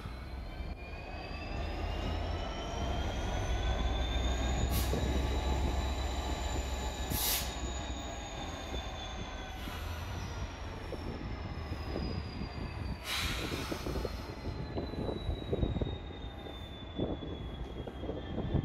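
GB Railfreight Class 66 diesel locomotive moving slowly over curved track, its wheels squealing in a long high whine that rises in pitch for the first few seconds and then slowly falls away. Underneath runs the low rumble of its engine, and there are three sharp clicks from the wheels on the rails.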